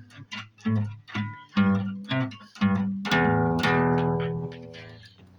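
Guitar playing the closing bars of a song: single plucked notes and short strums, then a final chord about three seconds in that rings out and fades away.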